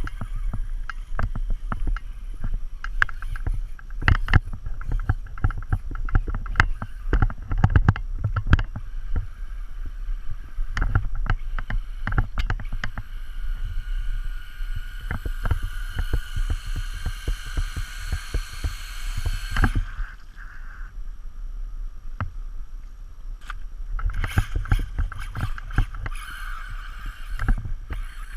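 Traxxas Slash 2WD radio-control truck with a 1900 kV brushless motor running, with many sharp clicks and knocks over a steady low rumble. A high motor whine builds from about halfway, cuts off suddenly about two-thirds in, and comes back near the end.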